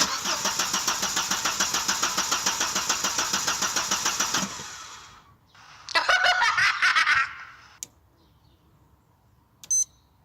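1992 Audi 80 engine cranked on the starter for about four and a half seconds without catching, then cranked again for about a second and a half, still no start. No fuel pump is heard running: the pump is dead in the tank. A click and a short high beep follow near the end.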